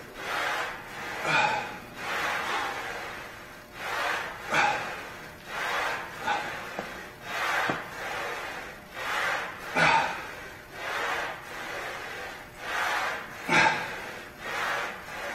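A man breathing hard and forcefully through a set of weighted rows, a breath about once a second, with a sharper, louder exhale every few seconds.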